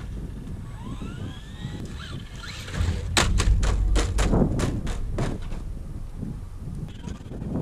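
Rising whine of an electric RC truck's motor speeding up, then a quick run of about nine sharp clattering knocks as the Traxxas Slash 4x4 bounces across the concrete. Wind rumbles on the microphone throughout.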